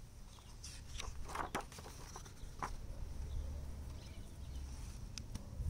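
Paper page of a hardback picture book being turned by hand, a quick run of rustles and flaps between about half a second and three seconds in, with a low rumble underneath.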